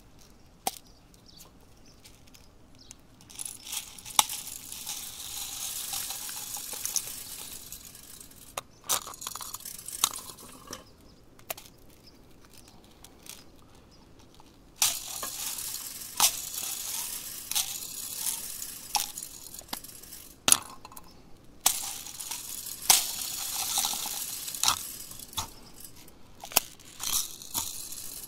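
Small plastic beads rattling and clicking as they are tipped out of twist-open plastic capsules into a motorcycle exhaust tip, with sharp clicks from the capsules being handled. The rattling comes in three stretches of a few seconds each, with quieter gaps between.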